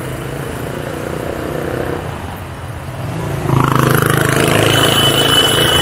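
A motor vehicle's engine running close by on a street, growing much louder about three and a half seconds in as it comes near, with a thin high tone starting near the end.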